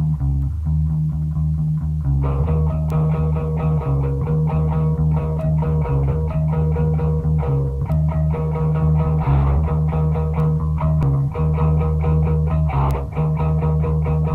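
Instrumental jam music: a bass line of low notes, joined by guitar about two seconds in.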